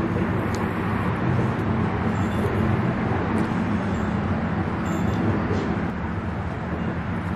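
Steady outdoor road-traffic noise, a continuous rumble and hiss with no single vehicle standing out.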